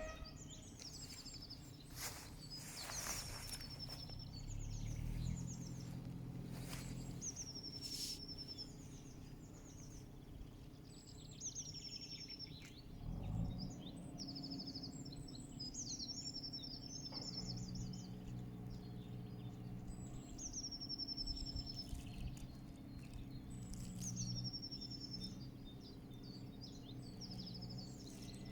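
Songbirds singing short high trilled phrases, repeated every two to three seconds, over a steady low rumble of natural ambience.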